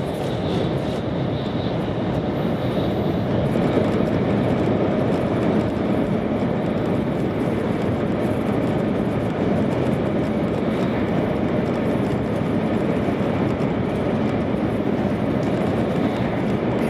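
Steady running noise of an E2 series Shinkansen train heard inside the passenger car, an even rumble that holds at one level throughout.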